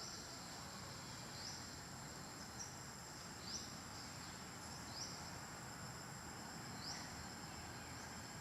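Insects droning steadily at a high pitch, with short rising chirps every second or two.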